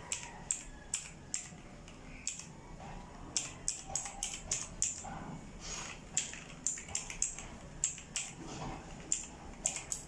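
Typing on a Leaven K550 mechanical keyboard with clicky blue switches: irregular sharp keystroke clicks, a few a second, with a short pause about two seconds in.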